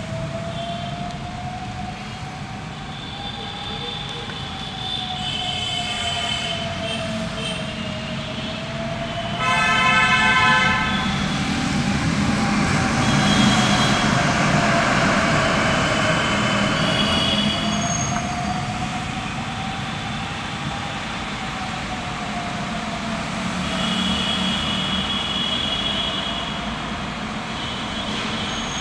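Dense city traffic heard from inside a car: a steady low rumble of vehicles, with horns of several pitches honking on and off and one loud horn blast about ten seconds in. Under it runs a wailing tone that slowly rises and falls, about once every eight seconds.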